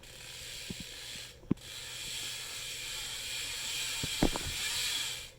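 BMX bike's rear hub ratchet buzzing as the wheel spins freely, a fast, even hiss-like whirr. It breaks off for a moment with a click about one and a half seconds in, then runs on until just before the end, with a couple of soft knocks about four seconds in.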